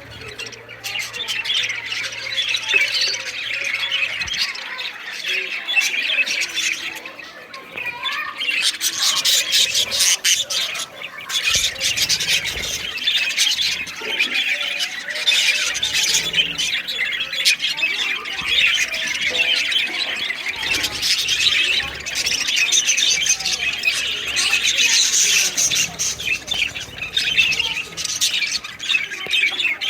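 Many caged pet birds chattering and squawking together without a break, a dense mix of overlapping shrill calls.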